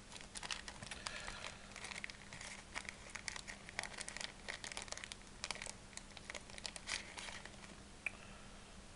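Small plastic packet crinkling and crackling as fingers open it and work a hop-up chamber out of it: a quick run of faint crackles that thins out near the end.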